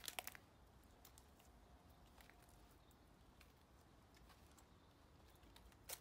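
Near silence, broken by a quick cluster of clicks at the start, a few faint scattered clicks, and one more click just before the end.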